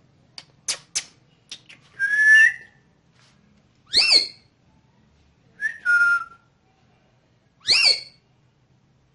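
Ringneck parrot making a few short clicks, then four loud whistled calls about two seconds apart: two held notes and two fast upward-sweeping whistles.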